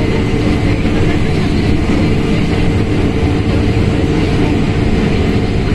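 Mercedes-Benz OF1721L BlueTec 5 bus running at steady revs, its diesel engine and drivetrain giving an even low drone.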